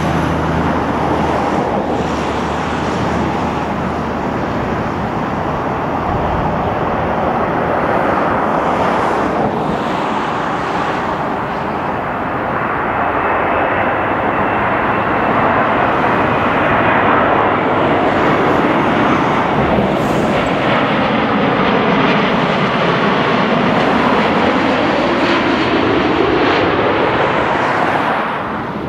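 Boeing 787-9 airliner on final approach, its twin turbofan engines giving a steady rushing jet noise that swells as the aircraft comes close and passes low overhead. A faint high whine is heard for a few seconds around the middle.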